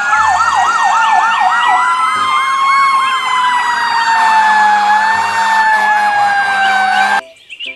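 Fire engine sirens sounding together as the trucks pass: a slow rising-and-falling wail over a fast yelp of about five sweeps a second, which fades out after a couple of seconds. Everything cuts off suddenly near the end.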